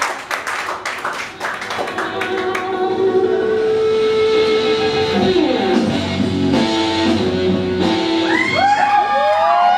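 Scattered clapping dies away over the first couple of seconds as a recorded song with guitar and singing starts up for a burlesque number. Swooping, sliding voice notes come in near the end.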